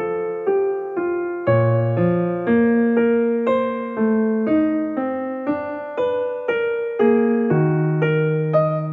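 Background piano music: a gentle melody of evenly spaced notes, about two a second.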